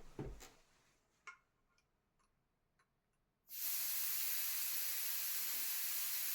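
A few faint clicks, then about three and a half seconds in, air starts hissing steadily out of a car tire's valve as the tire is deflated.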